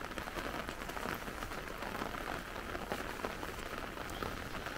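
Steady light rain falling on an umbrella overhead and on a pond: an even hiss made of many small drop ticks.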